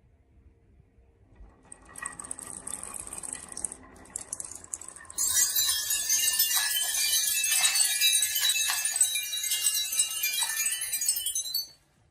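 Many marbles rolling and clacking against each other down a marble run. It starts as a light rattle and about five seconds in becomes a loud, dense, chime-like clatter that stops abruptly near the end.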